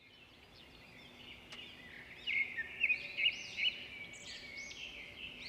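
Small birds chirping and twittering, many quick overlapping calls fading in, with louder, sharper chirps from about two seconds in.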